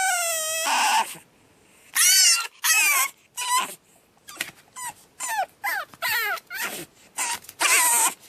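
Pug puppy screaming in its crate: a long high cry falling in pitch at the start, then after a short pause a string of shorter high-pitched squeals about two a second, with longer ones near the end. This is the distress crying of a newly arrived puppy left shut in its crate.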